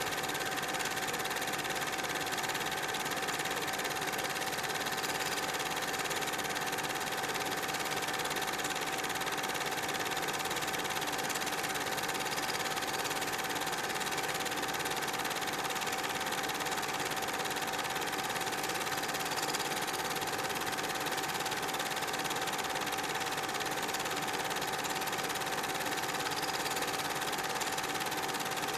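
Super 8 film projector running: a steady mechanical whirr with a constant hum tone, unchanging throughout.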